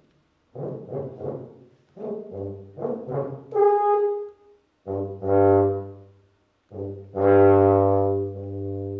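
Solo tuba playing: clusters of short, broken notes, then held tones with a low tone sounding underneath. The longest and loudest note swells in about seven seconds in and fades near the end.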